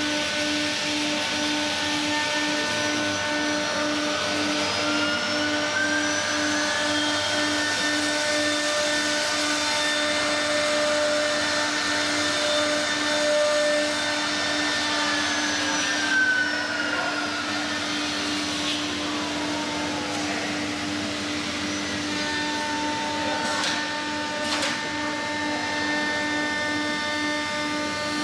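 Three-spindle CNC router running: its 3.5 kW air-cooled spindles give a steady high whine, while the axis servo motors add whines that slowly rise and fall in pitch as the gantry moves. A couple of sharp ticks come a little over two thirds of the way in.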